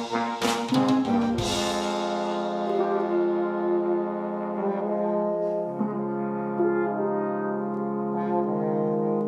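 A French horn ensemble with electric bass and drum kit. Drum hits and a cymbal crash come in the first second and a half, then the horns hold sustained chords over a bass line.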